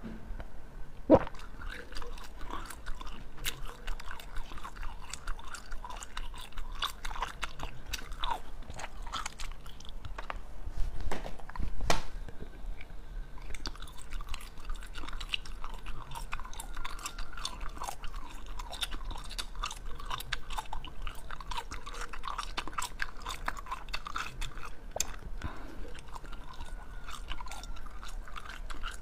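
Close-miked chewing and crunching of frozen bottle-shaped jelly, with crisp bites breaking off hard pieces. A couple of bites are louder, about a second in and again around eleven or twelve seconds in.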